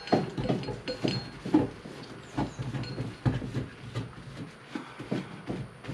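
A shop towel and rubber-gloved hands wiping the lobes of a diesel engine camshaft, a run of short, irregular rubbing strokes with light knocks.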